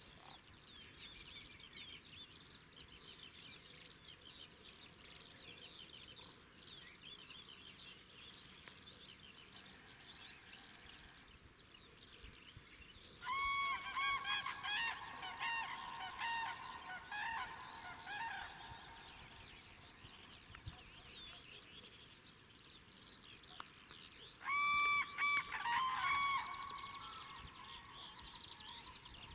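Wild birds calling: a flock of large birds gives two loud bouts of repeated, evenly pitched calls, a longer one about halfway through and a shorter one near the end, over a steady chorus of many small songbirds.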